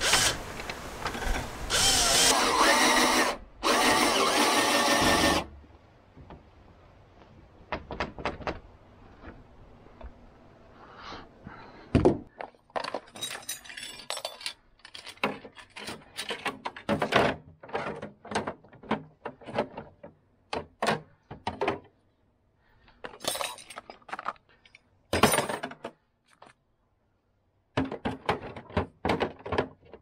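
A cordless drill driving screws into the wooden frame of a shipping crate in short runs, stopping about five seconds in. Then metal hand tools clink and clatter as they are sorted and packed into a plastic toolbox.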